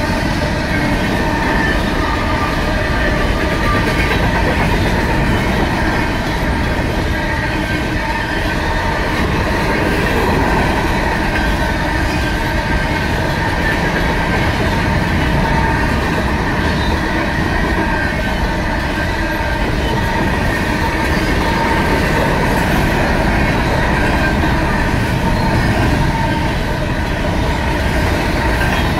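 Union Pacific grain train's covered hopper cars rolling past at speed: a steady loud rumble and clatter of wheels on the rails, with faint high wheel squeal. The crossing bells ring over it.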